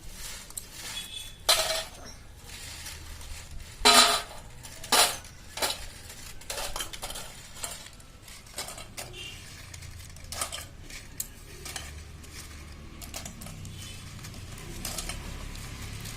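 Metal kitchenware clanking and clinking as a kadai and utensils are handled: sharp ringing clanks about a second and a half in, at four seconds (the loudest) and at five, then lighter scattered clinks, over a low steady hum.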